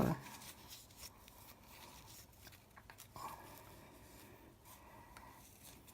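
Faint small scraping and clicking sounds of the eyeshadow pan's edges being wiped clean.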